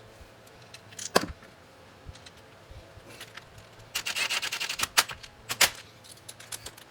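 Hand tools working steel bolts into a cast iron mounting plate on a milling machine table: a sharp metal clink about a second in, a fast run of clicks about four seconds in, then two loud clinks, as the plate is bolted down tight.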